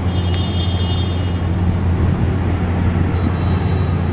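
Steady low background rumble of motor traffic, with a brief high-pitched chirp in the first second or so.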